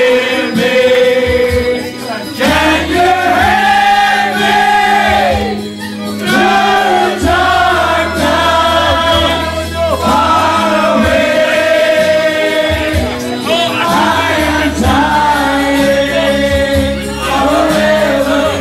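A crowd singing along together, loudly, over music with a steady bass line.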